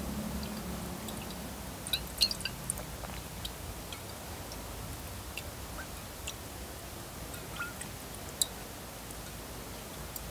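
Water swirled by hand in a glass laboratory beaker to dissolve urea, sloshing faintly, with scattered small clicks and ticks, a cluster of them about two seconds in.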